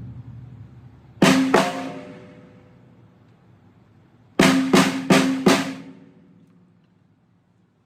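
Acoustic drum kit's snare drum struck twice, then four evenly spaced strokes a few seconds later, each hit ringing out and fading.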